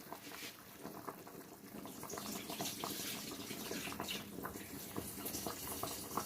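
Water with the chicken and spices boiling in a pot: a steady bubbling full of small pops, louder from about two seconds in.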